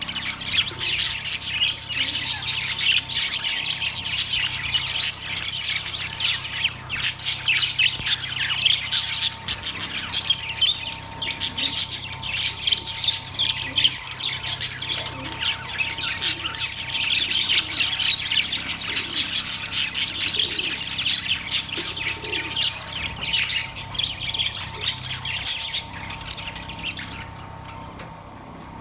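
A flock of caged budgerigars chattering: dense, rapid chirps, warbles and squawks overlapping continuously, thinning out near the end.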